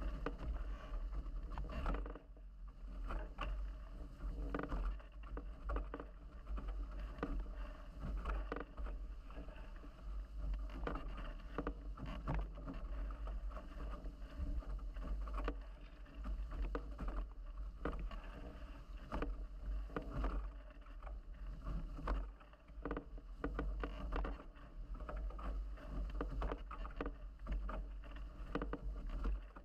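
Nacra 17 catamaran hulls planing through choppy water at speed: a continuous rush of water and spray with frequent short slaps against the hulls. A heavy low rumble of wind buffets the microphone underneath.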